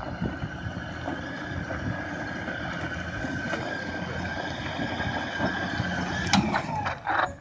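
Toyota Land Cruiser 4x4 engine pulling steadily up a steep rocky climb, with tyres working over loose stones. There are a few sharp knocks near the end.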